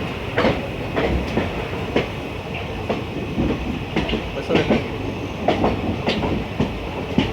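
Passenger train running, heard from aboard: a steady rumble of the carriage with irregular clicks and knocks of the wheels over the rail joints.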